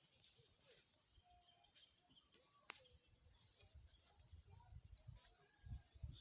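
Near silence: faint outdoor ambience with a steady high hiss, a few faint short calls and a single faint click a little before the middle.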